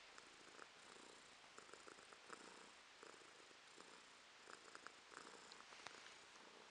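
Tabby house cat purring softly and steadily, the purr swelling and easing with each breath about once a second. Faint small ticks come through over it.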